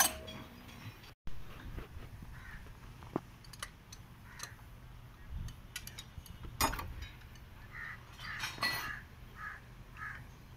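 Scattered metallic clinks and knocks of a hand tool working on a truck diesel engine block, the sharpest about six and a half seconds in. Birds call a few times in the background.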